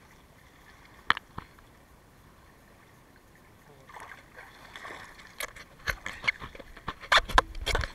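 Sea water sloshing and splashing against a camera bobbing at the surface, with two sharp clicks about a second in. The splashes grow busier and louder from about halfway through.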